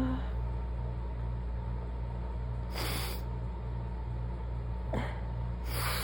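Two short, breathy bursts about three seconds apart from a woman stifling sneezes in an allergy fit, over a steady low hum.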